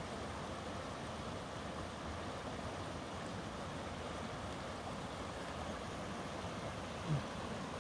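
A mountain creek rushing steadily, with one brief low thump near the end.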